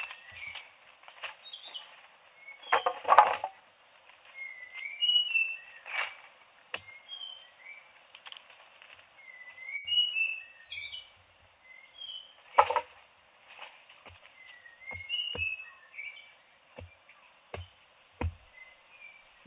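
A small bird chirping over and over in short quick notes, with scattered clicks and knocks.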